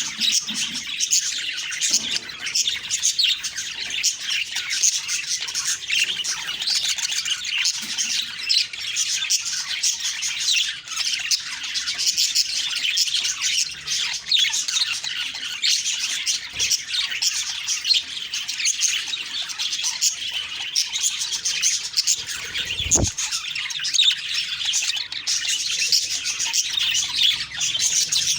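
Budgerigars chirping and chattering without a break, many short high calls overlapping, with one low thump late on.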